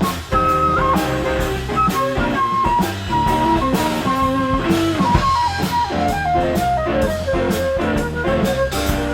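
Blues band playing an instrumental break: a lead guitar plays a single-note line with some bent notes over a steady drum beat.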